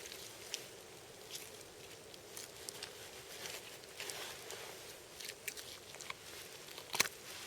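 A hunting knife cutting and scraping through meat and sinew while a deer's hindquarter is separated from the carcass: faint irregular scrapes and small clicks, with one sharper click about seven seconds in.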